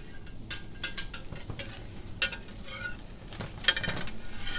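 Supermarket background noise: scattered light clicks and clatter, with one sharper click about three and a half seconds in.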